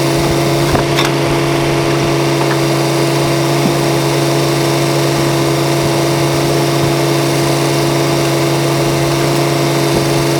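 An engine idling, a constant steady hum with a couple of faint clicks.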